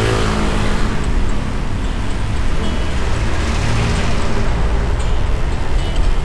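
Road noise from riding a motorbike in traffic: steady engine and wind rumble, with a rushing swell about a second in and another around three to four seconds in, as of vehicles passing.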